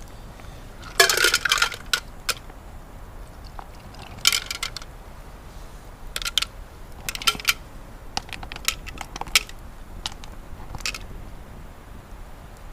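Mussel shells clattering and clinking against a metal billy can. Bursts of sharp clinks come about a second in, again near four seconds and around six to seven seconds, with lighter scattered clicks after.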